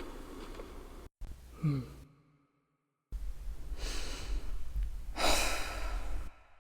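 A person's breathing: a short falling vocal sound about a second and a half in, a second of dead silence, then a long breathy exhale that swells near the end.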